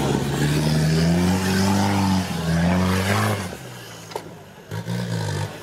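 Mitsubishi Pajero off-road vehicle's engine revving hard in long rising pulls as it climbs a steep dirt slope. The revs drop off sharply about three and a half seconds in, then come back in two short blips near the end.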